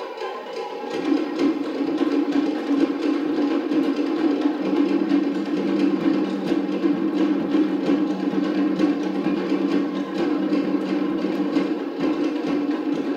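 Cook Islands drum-dance drumming: wooden slit log drums (pate) beaten in a fast, dense, driving rhythm. It grows louder about a second in and then keeps on steadily.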